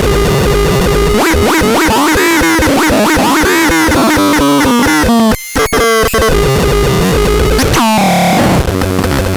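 ABSURDON X1 BAX BOX electronic noise box playing loud, warbling tones that slide up and down in pitch, cutting out briefly about halfway through and ending with a quick upward sweep.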